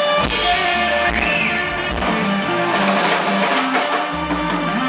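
Live electric blues band playing: electric guitars, saxophone, keyboards and drum kit.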